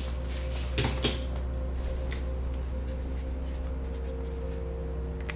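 Pen writing on paper, with two short knocks about a second in, over a steady low hum.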